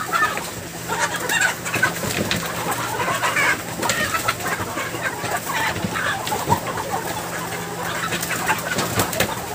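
Many broiler chickens clucking and squawking all at once as they are caught and handled, with scattered knocks and a steady low hum underneath.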